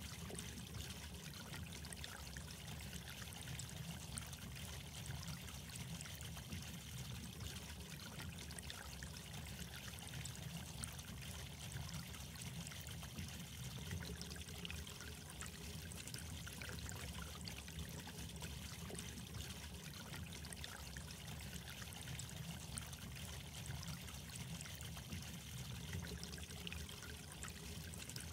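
Steady trickle of running water, even and unbroken.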